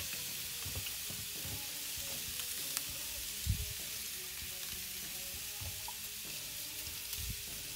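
Ribeye steaks sizzling steadily on hot grill grates as butter goes on them, with one dull knock about three and a half seconds in.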